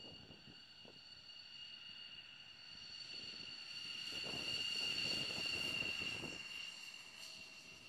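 F-16 fighter jet taxiing past, its turbine engine giving a steady high-pitched whine that grows louder to a peak about five seconds in, with some low rumble, and then fades.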